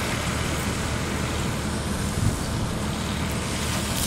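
Engine of farm machinery running steadily during the harvest, a continuous low drone with an even hiss above it.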